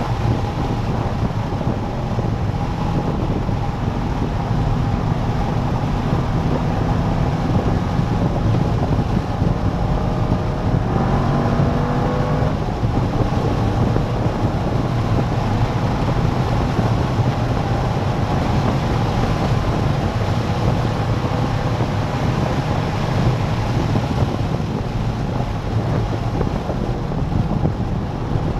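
C5 Corvette Z06's LS6 V8 running hard on track, mixed with steady wind noise. Its pitch climbs under acceleration about ten to twelve seconds in and again near the end.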